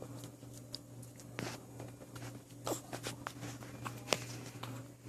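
Hiccups: short, sudden hiccup sounds repeating about every second and a half, three clear ones, over a faint steady hum.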